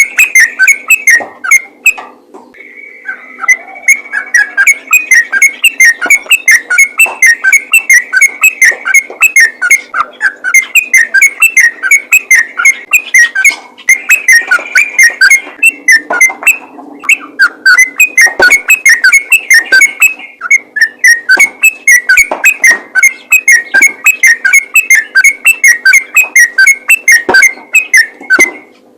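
Yellow-vented bulbul singing a rapid, continuous string of short whistled notes, several a second, with two brief pauses.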